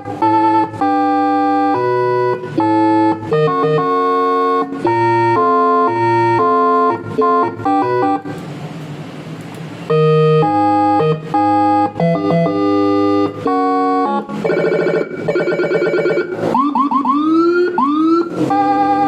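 HHS 40-tone electronic siren cycling through its tones. First comes a run of electronic notes jumping between pitches a few times a second. About eight seconds in there is a short, quieter stretch of hiss. Near the end come fast repeated tones and then quick rising sweeps.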